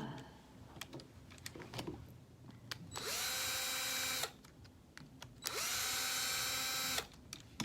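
Electric power screwdriver backing out long screws, in two short runs, each spinning up quickly to a steady whine. Light clicks of handling come before them.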